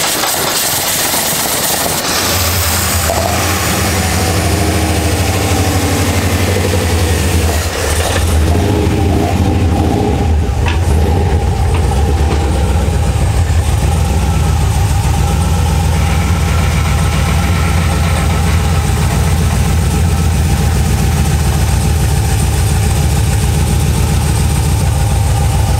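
LS V8 in a 1978 Datsun 280Z, fitted with 180-degree headers and individual throttle bodies, catching about two seconds in and then running at a steady idle, with a brief change in its note about eight seconds in.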